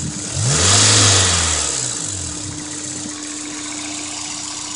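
2003 Honda S2000's 2.0-litre four-cylinder engine blipped once: it revs up about a third of a second in, falls back over a couple of seconds, then idles steadily. The revving is meant to bring out a tick the owner hears above about 2,500 rpm, which turned out to need a new timing chain tensioner and a valve adjustment.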